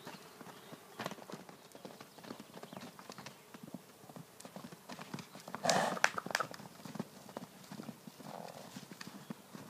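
Hoofbeats of loose Icelandic horses cantering and trotting on packed dirt and grass, an uneven patter of knocks from several horses. One short, loud horse call comes about six seconds in.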